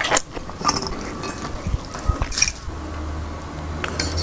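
Close-miked eating sounds: wet chewing with small mouth clicks.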